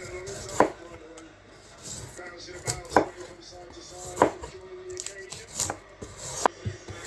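Kitchen knife chopping food on a cutting board: single sharp strokes at an uneven pace, about five strong ones over several seconds, some followed by a short ring.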